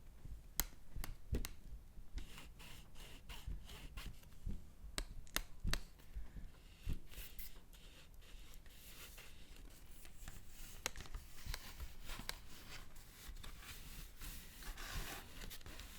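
Paper being handled: irregular, crisp crackles and rustles, with a scattering of sharp clicks.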